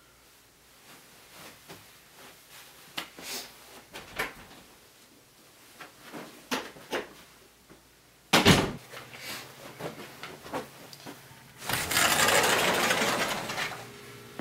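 Doors and cupboards being handled: light clicks and knocks, a sharp bang about eight seconds in, then about two seconds of loud scraping rush near the end.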